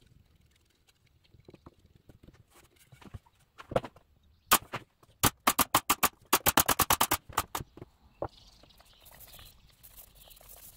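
Brad nailer firing a rapid run of about fifteen sharp shots over three seconds, starting about four and a half seconds in and bunching closest together near the middle. A single knock comes just before the run.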